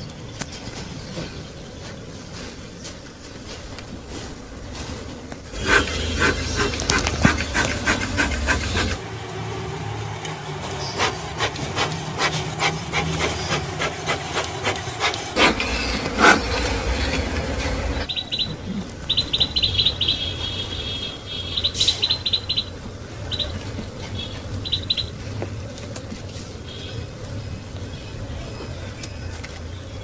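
Wooden beehive parts being handled: wood rubbing and scraping with clusters of quick clicks and knocks, loudest in the middle. Later comes a run of short, high chirps.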